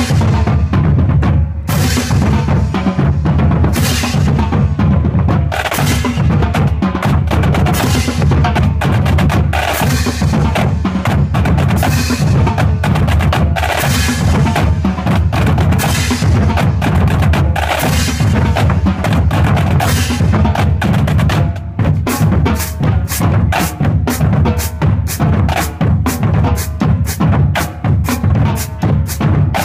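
School drumline playing bass drums and snare drums. Heavy accented hits come about every two seconds, then a little past the twenty-second mark it changes to a fast, even pulse of strokes, two or three a second.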